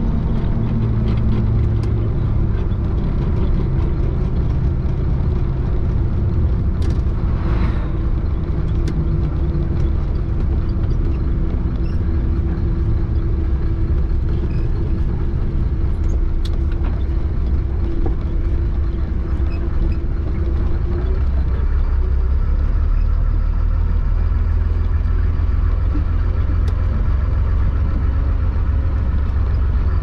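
Chenglong concrete mixer truck's diesel engine and drivetrain heard from inside the cab while driving, a steady heavy low rumble. A steady mid-pitched whine runs under it and fades out about two-thirds of the way through.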